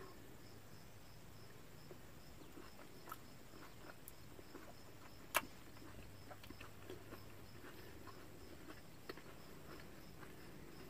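Quiet chewing and small wet mouth clicks of someone eating cherry tomatoes, with a few sharp clicks, the sharpest about five seconds in.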